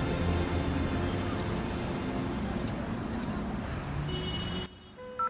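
Busy city street ambience, with traffic running steadily. Near the end it cuts off abruptly to a quiet enclosed space, and a single short payphone keypad tone sounds as dialling begins.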